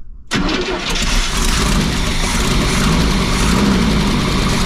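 Long-dormant motorhome's carbureted gasoline engine catching suddenly about a third of a second in and running loudly on fuel poured straight into the carburetor bowls: the engine starts and runs.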